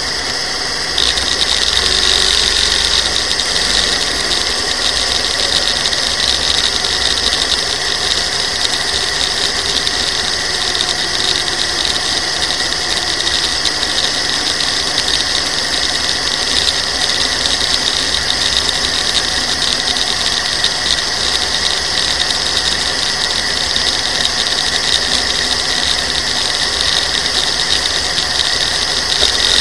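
Modified dragster's engine running steadily while the car sits stationary, heard through an onboard camera as a constant mechanical drone under a heavy hiss; it gets a little louder about a second in.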